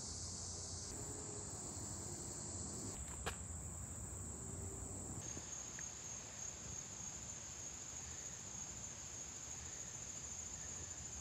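Steady, high-pitched chorus of summer insects (crickets or katydids) in woodland. Its pitch jumps twice, about a second in and about five seconds in, and there is one sharp click a little after three seconds.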